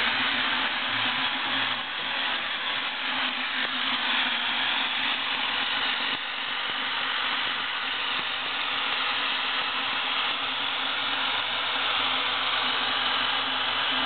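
Electric drill running steadily, used as a mixer to whip egg whites, with a constant motor hum under the whirring.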